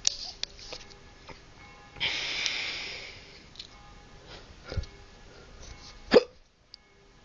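A drunk person hiccuping: two sharp hiccups, about two thirds of the way through and near the end, the second the louder. A breathy rush of about a second comes about two seconds in. Faint music plays underneath.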